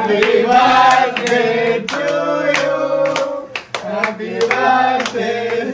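A group of people clapping and cheering a surprise birthday, voices breaking into long held sung notes over the hand claps.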